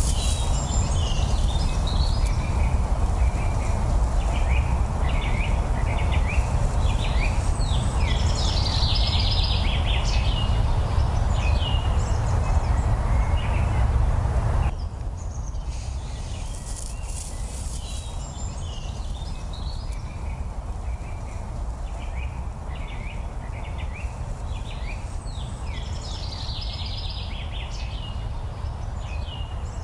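Small birds chirping and singing over a steady rushing background noise. The whole sound drops in level about halfway through.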